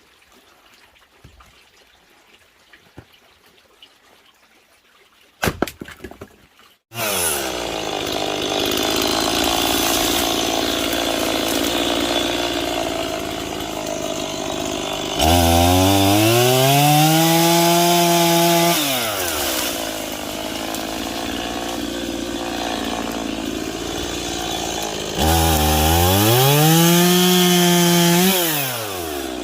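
Two-stroke chainsaw: a brief sputter, then the engine catches and runs at idle about a quarter of the way in. It is revved up to full speed twice, held high for about three or four seconds each time, and drops back to idle after each.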